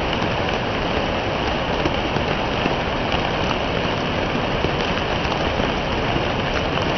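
Steady rain falling, a dense, even hiss with faint scattered drop ticks.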